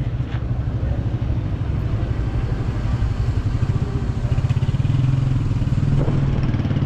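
A motor vehicle engine running steadily at idle close by, with a rapid low pulse.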